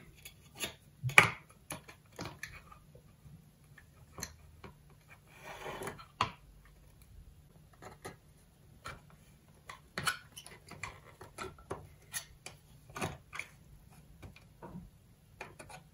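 Irregular small clicks and taps of hand soldering work: a soldering iron tip and enamelled copper wire knocking against the terminals of a plastic enclosure, with one sharper knock about a second in and a brief rustle midway.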